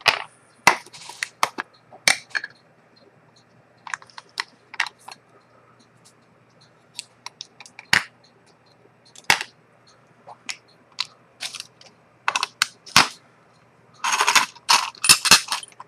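Irregular small sharp clicks and taps, scattered singly and in short groups, with a quick flurry near the end, over a faint steady hum.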